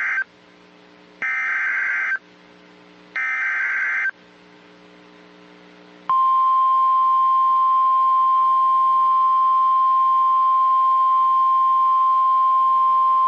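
NOAA Weather Radio Emergency Alert System signal. First comes the tail of one SAME data burst, then two more, each a warbling burst about a second long with short gaps between. About six seconds in, the long steady 1050 Hz warning alarm tone begins and holds. This header and alarm tone announce a new warning being issued, here a severe thunderstorm warning.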